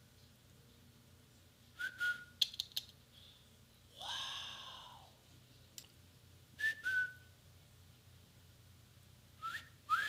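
A person whistling by mouth in short catcall-style bursts: brief whistle notes about 2 and 7 seconds in, a longer breathy blow about 4 seconds in, and near the end a whistle that rises and then glides down, like a wolf whistle.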